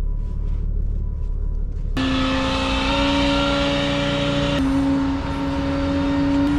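Flatbed tow truck's engine: first a low rumble heard from inside the cab. After about two seconds, a steady droning whine of the hydraulic bed runs over the engine as the bed is tilted back toward the car to be loaded.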